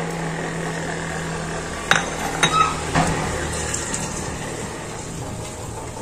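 Onion, garlic and tomato paste frying in a stainless steel pot, stirred with a silicone spatula. There is light sizzling, with three sharp clinks against the metal pot about two to three seconds in.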